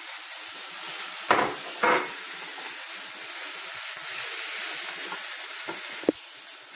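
Boiled clam meat sizzling in hot coconut oil in a frying pan while it is stirred with a wooden spatula. Two loud knocks of the spatula come about a second in, and a sharp click near the end.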